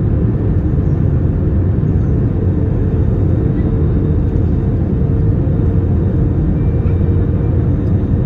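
Airbus A321-231 cabin noise on the landing approach: a steady low roar of airflow and its IAE V2500 engines heard from a window seat over the wing, with a faint steady hum.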